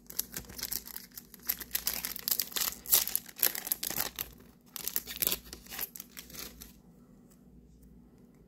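Foil Yu-Gi-Oh booster pack being torn open and crinkled in the hands, a dense run of crackling and tearing that stops near the end.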